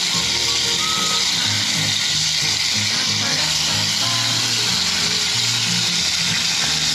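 Floured dove breasts sizzling steadily as they cook over a hot open fire, under background music with a stepping low bass line.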